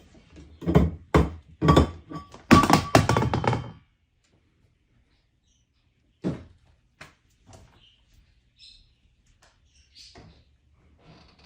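A quick run of loud thuds and knocks over the first four seconds, then a few scattered fainter taps and clicks.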